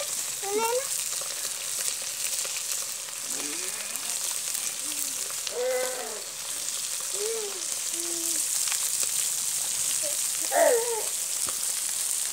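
Hot oil sizzling steadily in a pan as food fries, with a few brief snatches of voices over it.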